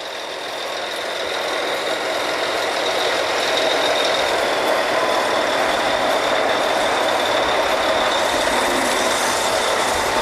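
Oil-drilling rig machinery running steadily on the rig floor during drilling. It is a dense mechanical din with a faint high whine, growing louder over the first few seconds and then holding level.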